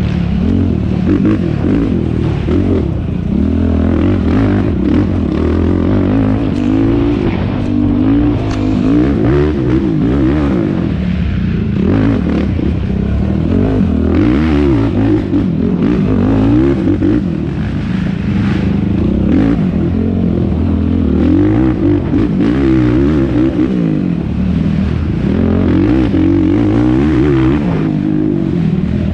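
Yamaha YFZ450R quad's single-cylinder four-stroke engine revving hard, its pitch rising and falling over and over as the rider works the throttle and gears, with knocks and clatter from the machine over rough ground.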